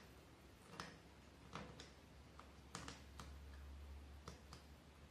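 Thread being wound around the nails of a string art board: faint, irregularly spaced light clicks and taps as the thread catches and slips over the nail heads, about eight in all, over a low steady hum.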